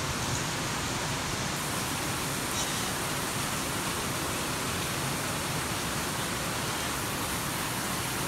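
Heavy tropical-storm rain pouring down, a steady, even hiss with no break.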